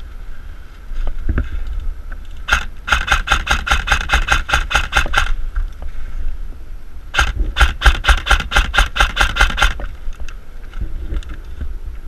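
Airsoft rifle firing two strings of rapid shots, about five a second, each string lasting two to three seconds, over a low rumble of wind on the microphone.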